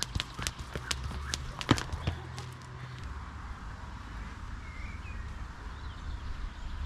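Jump rope slapping the rubber floor matting, about two sharp slaps a second, stopping about three seconds in. A low steady rumble follows.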